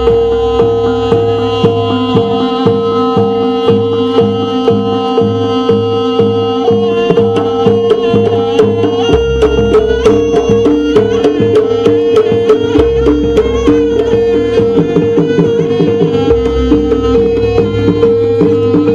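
Javanese jaranan music: hand drums beating in a fast, steady pattern under a held tone and a melody line that moves in pitch.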